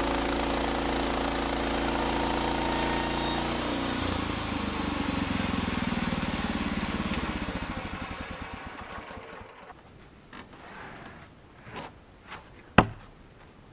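Norwood LM29 portable sawmill's engine running steadily, then cutting off about four seconds in and winding down over the next few seconds with a slowing pulse. A few scattered knocks follow, and one sharp clack near the end is the loudest sound.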